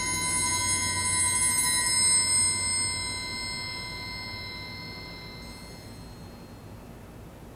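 Several triangles hung on a rack ringing on together, a cluster of steady high tones slowly fading away at the close of a piece.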